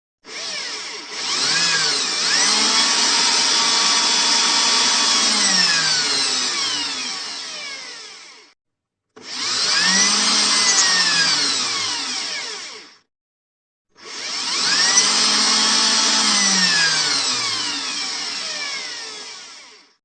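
Electric drill running in three bursts, about eight, four and two-thirds of that, then six seconds long, with short silences between. In each burst the motor's whine rises in pitch as it speeds up and falls as it winds down.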